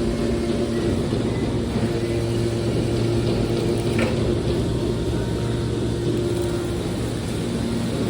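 Metal press baler machinery running with a steady, fairly loud hum, with one short knock about four seconds in.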